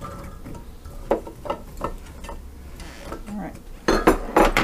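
Baby carrots tumbling from a glass measuring cup into a square Copper Chef pan of cut potatoes, a scatter of light knocks and clatters, with a louder cluster of knocks near the end.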